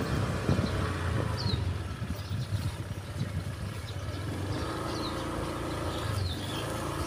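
Low steady hum of a vehicle engine running, with a few short high chirps over it.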